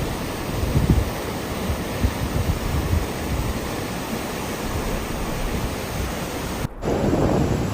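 Storm noise: a steady rush of wind and heavy weather, with low rumbling gusts buffeting the microphone. It drops out for a moment near the end and comes back louder.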